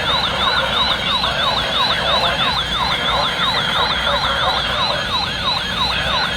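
Electronic weather-alert siren sounding for a severe thunderstorm warning: two tones, one sweeping down again and again and a higher one warbling, about three cycles a second.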